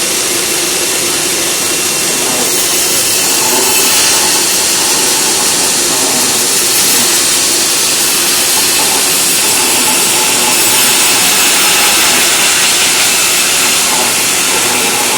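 Sawmill machinery running: a loud, steady rushing noise with a faint hum underneath.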